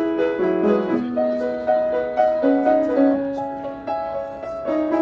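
Background piano music: a slow melody of held notes stepping from one pitch to the next about every half second.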